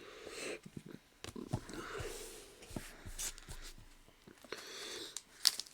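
Trading cards being handled and sorted on a table: faint rustling and sliding with scattered light taps.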